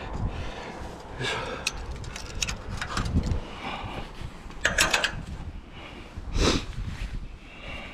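A climber's heavy breathing on a steel lattice tower, with sharp metallic clicks and clinks a couple of seconds in and again around five seconds in as gloved hands and gear knock against the tower's steel pipes.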